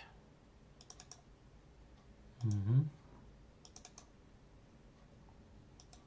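Computer mouse clicking quietly in two quick clusters of clicks, about a second in and again near four seconds, with a short bit of a man's voice between them.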